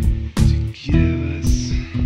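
Background music: guitar and bass with drums keeping a steady beat.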